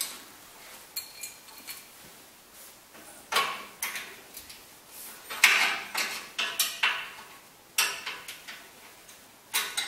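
Irregular metallic clinks and knocks of the fireplace door's metal brackets and hand tools being fitted to the door frame, with quiet gaps between and most of the knocks about halfway through.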